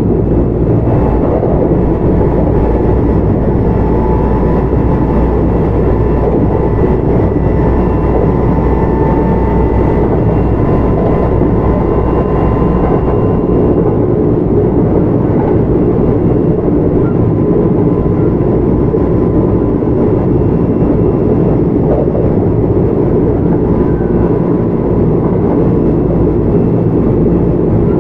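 Kintetsu 1031 series electric train running steadily between stations, heard from inside the car: a constant rumble of wheels on rail and running gear. A faint steady whine sits over it during the first third.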